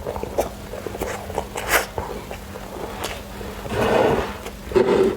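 Close-up eating sounds: chewing and mouth smacks with scattered small clicks, and two louder wet bursts around four and five seconds in.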